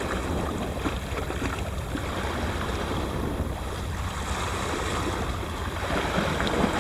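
Steady rush of wind and sea noise by the water, with a low rumble underneath.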